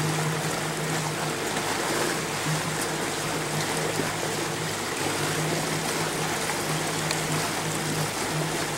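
A small motorboat's engine running with a steady drone, under a steady rush of water along the hull.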